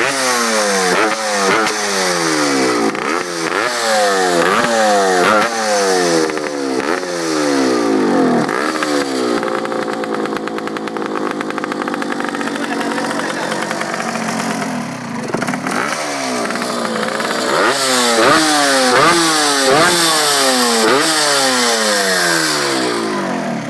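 Yamaha RX two-stroke single-cylinder motorcycle engine revved hard in quick blips, about one a second, each rev rising and falling back. Through the middle it is held at a steady high rev, then blipped again toward the end. The sound is loud enough that the owner says all the neighbours came out.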